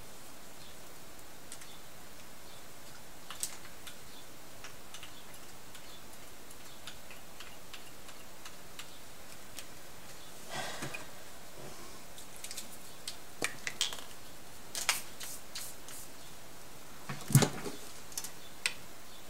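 Scattered light clicks and taps over a steady low hiss, with a short rustle about halfway through and a louder knock near the end.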